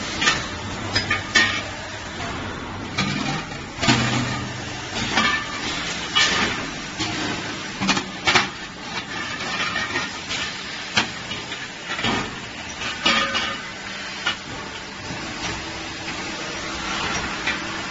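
Steel drum production line machinery running, with irregular metallic clanks and knocks over a steady machine hum.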